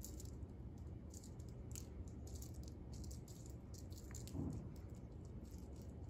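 Faint, light rustling and rattling from a feathered wand cat toy being waved, with a soft thump about four and a half seconds in, over a low steady room hum.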